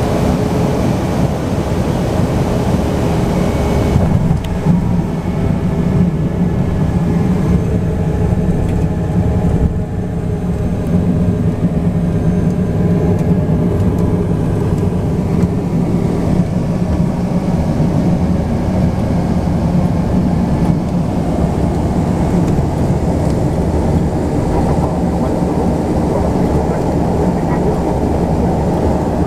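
Cessna 208 Caravan's single PT6A turboprop engine and propeller droning steadily, heard inside the cabin during landing and rollout. About four seconds in, the higher hiss drops away and a lower steady hum comes forward.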